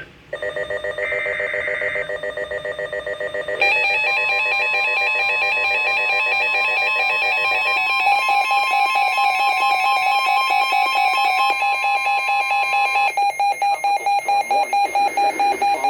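NOAA Weather Radio emergency alert tones for a tropical storm warning: several steady alarm tones layered with fast pulsing beeps. The pattern changes at about four and eight seconds in, and the tones stop abruptly near the end.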